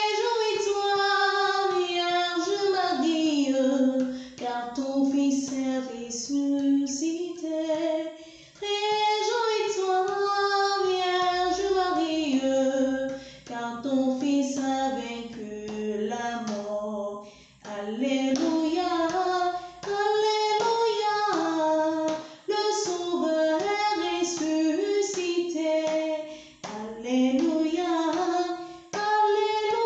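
A female voice singing a Christian Easter hymn melody, in phrases of about four seconds with short breaks between them.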